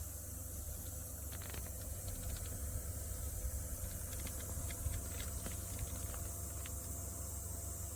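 Small desktop evaporative cooler fan running steadily with a low hum and faint hiss, with scattered light clicks and taps in the middle of the stretch.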